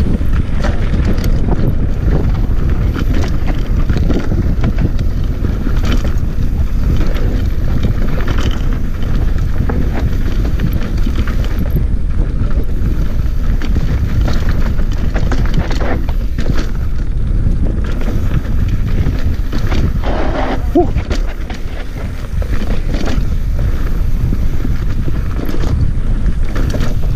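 Mountain bike descending a rough dirt trail at speed: constant wind rumble on the camera microphone, with tyres, frame and drivetrain rattling and knocking over rocks and roots.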